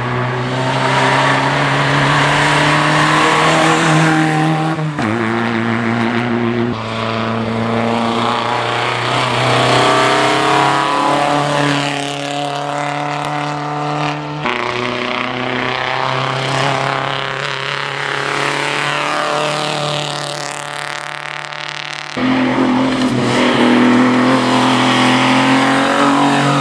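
Vintage racing car engines running hard up a hill, each held at steady high revs, then dropping abruptly in pitch at gear changes. Near the end a car passes close, its engine note falling as it goes by.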